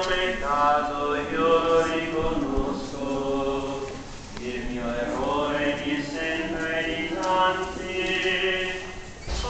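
A crowd of people singing a slow religious chant together in long held notes, with short pauses between phrases.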